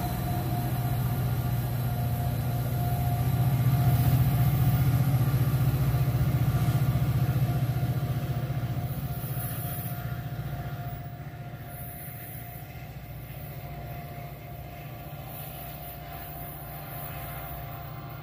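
Metro-North F40 locomotive's two-stroke EMD V16 diesel working under throttle as the train departs: a low drone with a steady whine above it, swelling about four seconds in and then slowly fading as the locomotive moves away.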